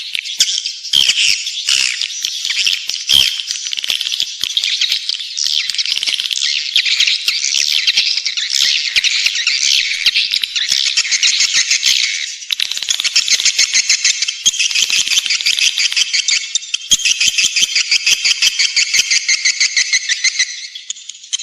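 Swiftlet lure call: many swiftlets twittering in dense, fast rattling chatter, with evenly pulsed trills in the second half. A recording of this kind is played to draw swiftlets in to roost and nest.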